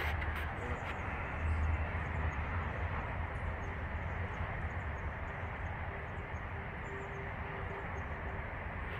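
Steady rumble of freeway traffic, swelling briefly about a second and a half in.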